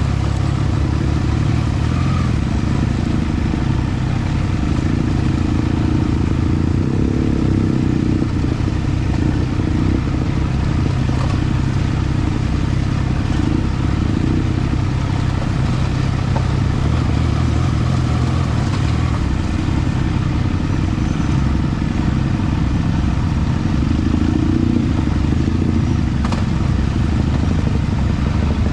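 Triumph Trident 660's three-cylinder engine running steadily at low revs as the motorcycle is ridden slowly over a rough, rocky dirt track.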